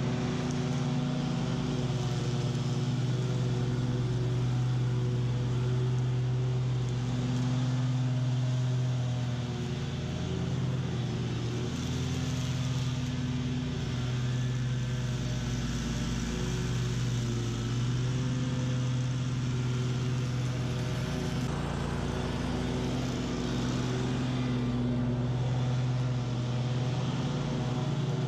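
BOB-CAT QuickCat 36-inch stand-on mower running steadily at full throttle, cutting tall, thick weeds with its blades, its engine note sagging briefly now and then under the load.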